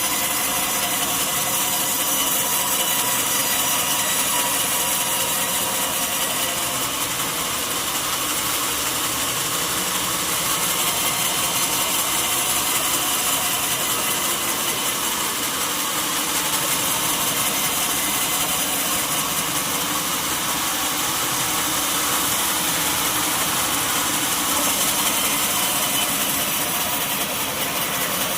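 Sawmill saw ripping steadily through a mahogany log, with the machine's motor running underneath in one unbroken noise.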